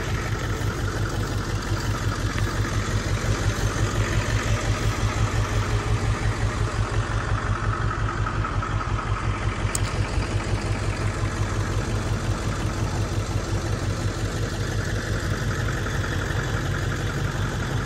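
Truck engine idling steadily, with an even low rapid pulse.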